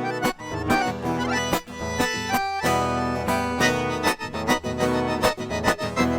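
Accordion playing a lively sertanejo solo live, with steady tones held over a strummed guitar keeping an even beat.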